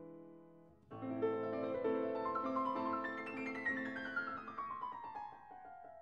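Background piano music: a held chord fades out, then a flowing passage of many notes with a long run falling in pitch.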